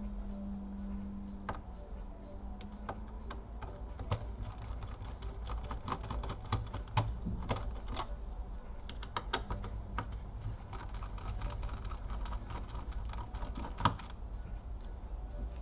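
Scattered small clicks and taps of a screwdriver and screws as the hinge screws are taken out of a laptop, at irregular spacing over a low background hum.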